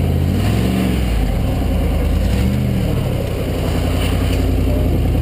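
Rock-crawler buggy's engine revving under load as it climbs a boulder step, its pitch rising and falling a few times and then holding steadier.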